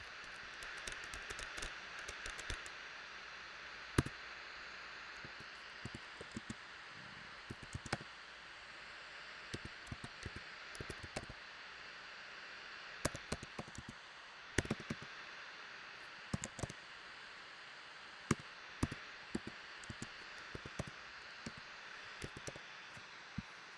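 Typing on a computer keyboard: short runs of quick key clicks, one cluster after another, over a steady hiss.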